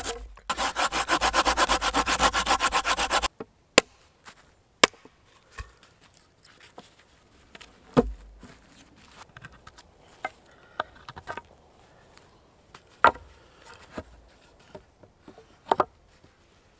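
Hand saw cutting through a wooden pole in rapid, even strokes for about three seconds, then stopping abruptly. After that come scattered sharp wooden knocks as the cut poles are handled and fitted together.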